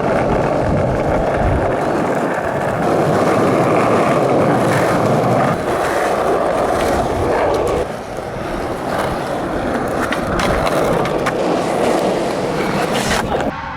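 Skateboard wheels rolling over rough pavement in a steady, loud rumble, with a few sharp clacks.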